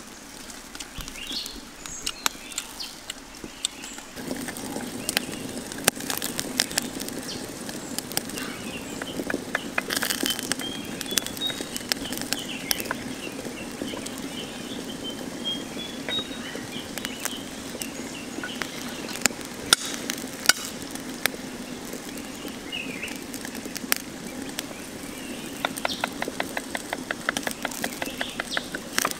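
Wood fire crackling under a wok: scattered sharp pops over a steady low rumble that sets in about four seconds in.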